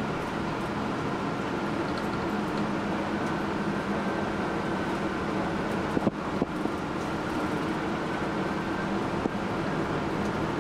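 Bus engine and road noise heard from inside the moving bus, a steady running hum, with a couple of brief knocks about six seconds in.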